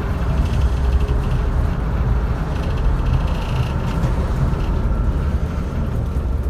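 Class 121 diesel railcar running along the line, heard from inside its driving cab: a steady low rumble of the underfloor engine and the wheels on the rails.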